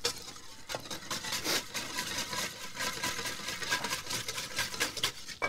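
Wire whisk beating the egg yolk, white wine and lemon juice base of a hollandaise in a stainless steel bowl: quick, even strokes with a light ringing from the bowl.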